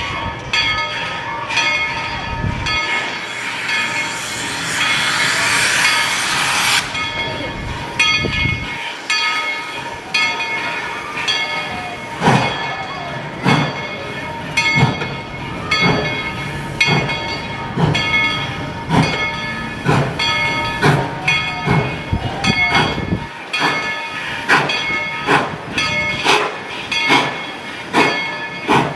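Narrow-gauge steam locomotive: a loud hiss of steam for about four seconds near the start, then exhaust chuffs setting in about ten seconds in and keeping up a steady beat of roughly one and a half a second as it works.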